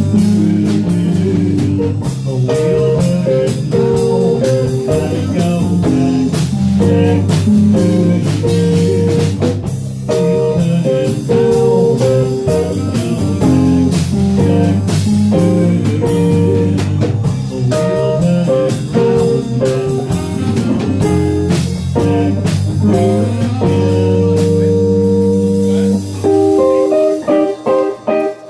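Live band jamming: electric guitar over a Fender bass line and a drum kit. Near the end the bass drops out.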